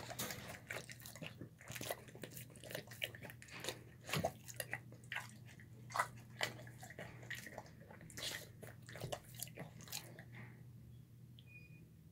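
Dog eating soft homemade food of chicken, rice and vegetables from a bowl: quick, irregular chewing, smacking and lapping that stops near the end.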